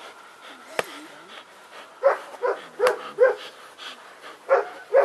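A shepherd dog barking in short, sharp barks at a protection helper's bite sleeve during bark training: four quick barks about two seconds in, then two more near the end. A single sharp click comes about a second in.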